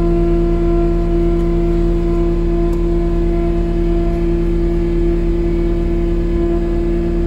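Diesel engine of a rubber-tracked compact machine running steadily with an even hum while it holds a granite step slung from a lifting strap.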